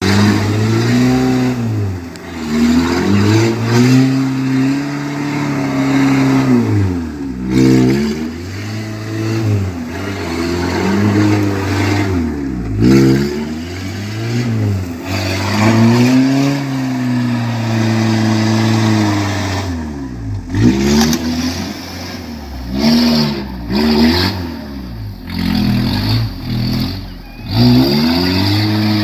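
Peugeot 205's 1.9 diesel engine revving up and falling back over and over, a car stuck in mud trying to drive out.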